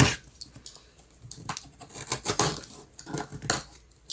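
A package being handled: scattered rustling and light knocks, with a few louder handling sounds in the second half.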